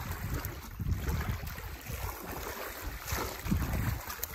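Wind buffeting the microphone in uneven gusts, over the lapping of water against a small boat on a pond.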